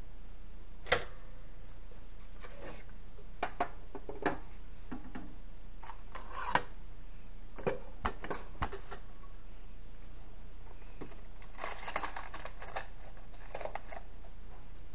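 Scattered light clicks, taps and knocks of kitchen utensils and cookware being handled, with a busier cluster of clatter about twelve seconds in.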